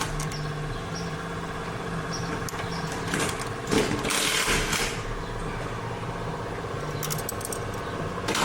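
Steady hum of a running machine, with a few short surges of noise over it.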